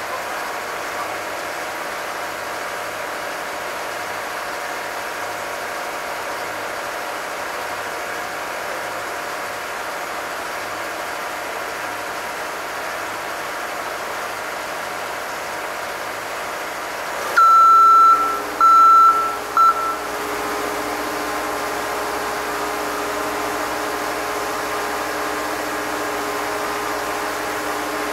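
Heavy construction machinery's engine running steadily. About two-thirds of the way through, a loud, high-pitched warning beep sounds three times at uneven lengths, two long and one short, and the engine's note changes just after.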